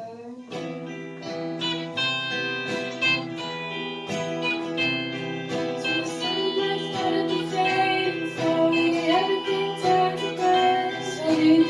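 Music led by a plucked guitar playing a steady run of notes.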